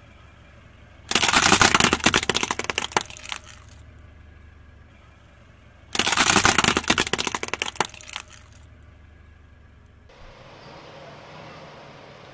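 Plastic baby rattle toy cracking and crunching under a car tyre, in two loud crackling spells of about two and a half seconds each. A faint steady hiss follows near the end.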